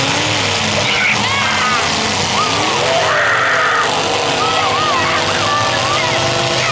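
Several demolition derby cars' engines running and revving together, with high wavering squeals and a short scraping hiss about three seconds in.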